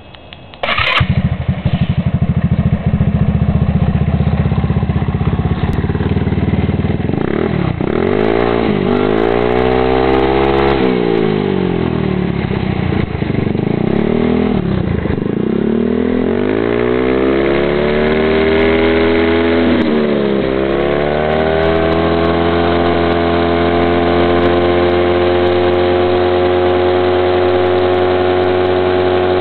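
150cc GY6 scooter's single-cylinder four-stroke engine, with a header exhaust, starts about a second in and idles with a fast, even putter. From about seven seconds it is revved up and down several times, then held at full throttle at a steady high pitch.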